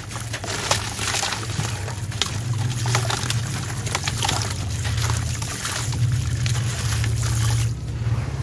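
A dry sand-and-cement chunk crushed by hand: gritty crunching with many small crackles as grit and powder pour down into a tub with wet mud in the bottom. A steady low rumble runs underneath.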